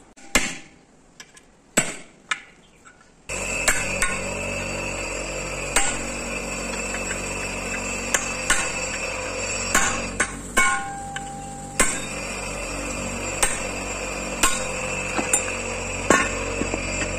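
Sharp metal hammer blows, about one a second, as a hammer drives a punch to knock the rivets out of a bus drum-brake shoe and free its worn friction lining.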